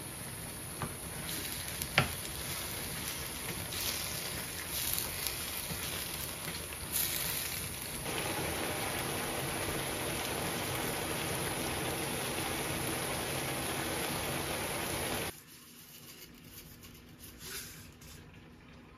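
Soy-braised chicken simmering and bubbling in a frying pan, a steady rain-like sizzle as the sauce reduces on low heat, with a sharp knock about two seconds in. The sizzle gets louder about eight seconds in and cuts off about fifteen seconds in, leaving a quiet background with a few faint clinks.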